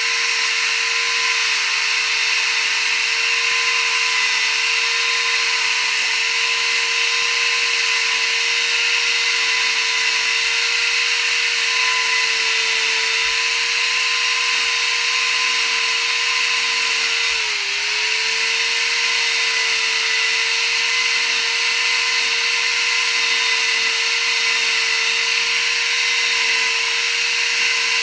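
Chainsaw running steadily at high speed as it cuts feather grooves into a wooden owl carving. About two-thirds of the way through, its pitch dips briefly and then recovers as the chain takes a load.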